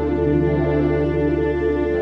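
Background music: a calm ambient piece with a held bass note under a repeating pattern of short notes, with a bass change just after the end.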